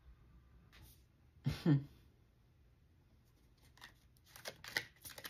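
A deck of tarot cards being shuffled: a quick run of short riffling clicks starting a little past halfway. Before it, about one and a half seconds in, there is a brief vocal sound.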